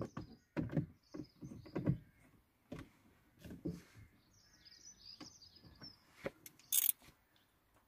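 Scattered knocks and clicks of a screwdriver and hands working on the steering wheel's trim screws, with a cluster of low thumps in the first two seconds and a sharp click about seven seconds in. A few short, faint high chirps sound in the middle.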